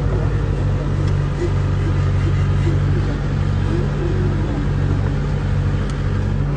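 A steady low drone runs throughout, with faint voices of people murmuring above it.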